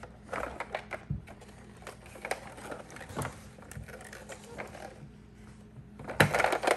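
Plastic toy car being handled and tipped over on a tabletop: scattered light clicks and knocks of plastic on the table. A louder clatter follows near the end.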